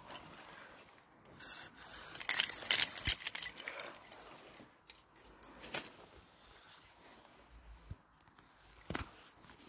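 Rustling, rubbing and scraping handling noise with scattered sharp clicks, loudest for a couple of seconds a little after the start.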